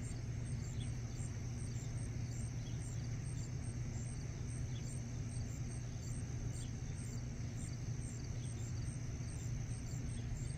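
Evening insect chorus: crickets chirping in an even rhythm of about two chirps a second over a steady high trill, with a steady low hum underneath.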